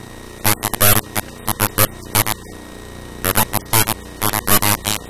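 Steady electrical mains hum from the recording setup, broken by short, loud bursts of a person's voice.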